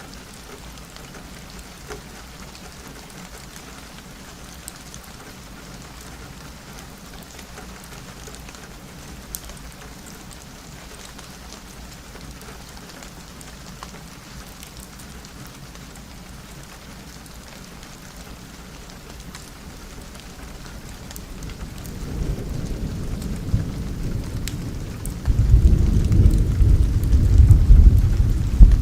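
Steady rain with scattered small drop ticks. About twenty seconds in, a low rumble of thunder builds, and it turns loud about twenty-five seconds in.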